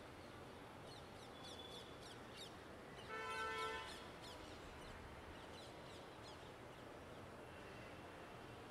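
Steady low hum of city traffic with small birds chirping in quick, falling notes. About three seconds in, a vehicle horn sounds once, held for under a second.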